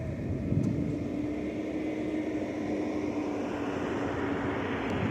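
A heavy engine running with a steady drone, growing louder about half a second in.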